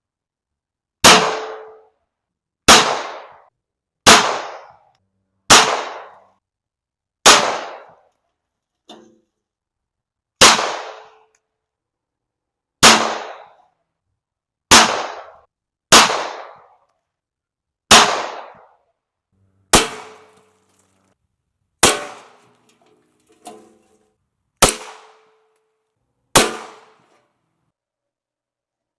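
Llama M1911-clone pistol being fired, fourteen shots at uneven spacing one to two seconds apart, each with a short echoing tail, plus two faint clicks between shots.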